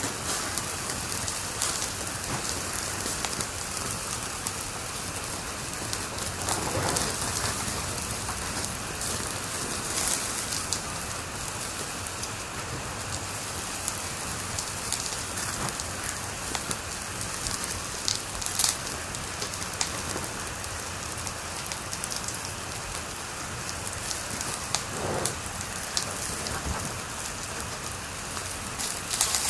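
Wood fire crackling in a fireplace: a steady hiss with scattered sharp pops, the loudest about ten and about eighteen seconds in.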